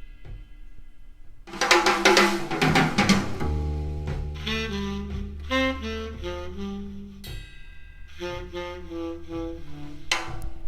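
Recorded music played back on a hi-fi system: a soft opening, then a loud drum and cymbal fill about a second and a half in, followed by a saxophone melody over a steady bass line and drums.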